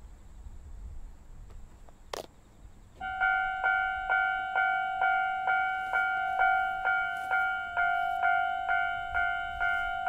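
Railway level-crossing warning bell starting about three seconds in, ringing an evenly repeated electronic ding about twice a second, the same two-tone note on every strike. A single sharp click comes just before it.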